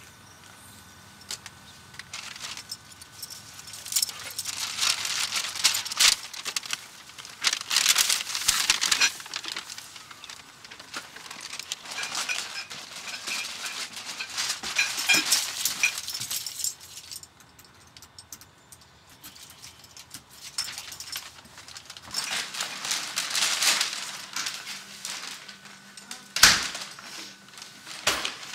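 Paper and plastic grocery bags rustling and crinkling in repeated stretches as they are handled and carried, with one sharp thud near the end.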